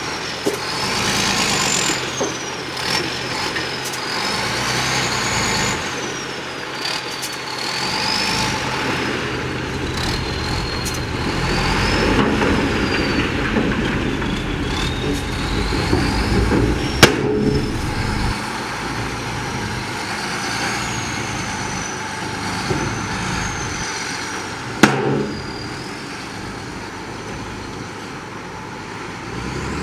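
Diesel engines of heavy earthmoving machinery running steadily, with a high thin whine wavering up and down over them and two sharp knocks, one a little past the middle and one near the end.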